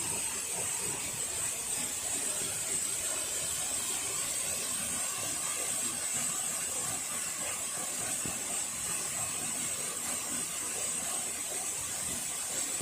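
Waterfall running: a steady rushing, splashing noise of falling water, with a steady high-pitched hiss or whine above it.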